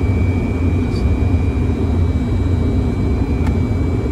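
Steady cockpit noise of a Fokker 100 in flight on approach: a dense low rumble of airflow and engines with a thin, steady high-pitched whine over it. A faint click about three and a half seconds in.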